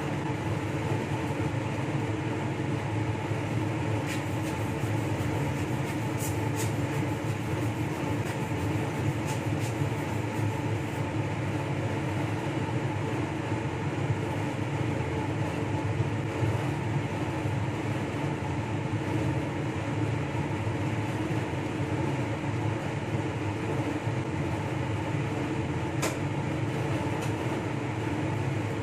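Steady whooshing hum of a clean-air hood's blower fan running, with a few light clicks about 4, 6 and 26 seconds in.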